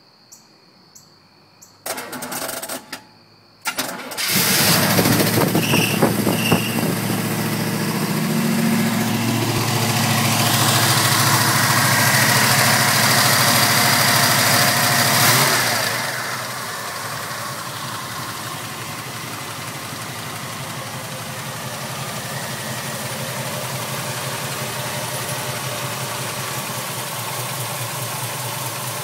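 A 1979 Camaro Z28's 305 small-block V8 being started: a couple of short goes on the starter, and it catches about four seconds in. It then runs at a raised idle for about eleven seconds before dropping to a lower, steady idle.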